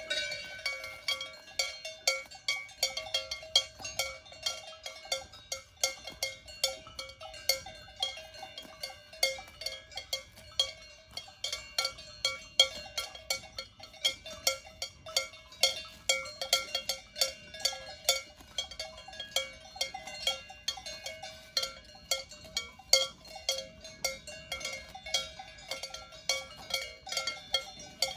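Cowbells on grazing Swiss cows clanking irregularly as the animals move their heads, several bells ringing at once at about two or three clangs a second.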